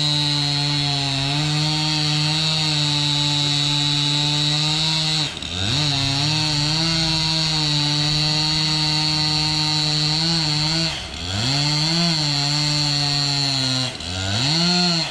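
Chainsaw running at full throttle while cutting into a tree trunk, a loud steady high-pitched engine whine. The throttle eases off and picks back up about five seconds in, about eleven seconds in and near the end, then drops right at the end.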